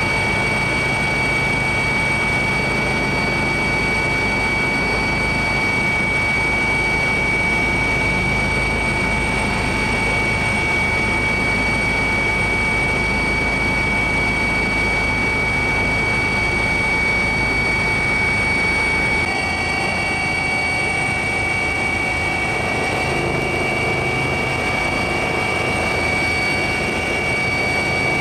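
Aircraft engine noise heard from inside the aircraft, a steady drone with a constant high whine, its low rumble easing slightly about two-thirds of the way through.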